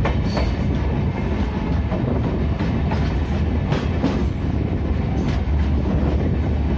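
Passenger train running, heard from aboard the coach: a steady rumble of wheels on rail with irregular clacks from the rail joints.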